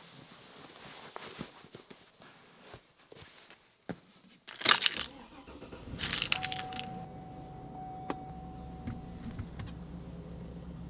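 Faint clicks and rustling, then a loud jangle of keys about four and a half seconds in. A vehicle engine is started with the key about six seconds in and settles into a steady idle, with a steady tone sounding for about three seconds as it starts.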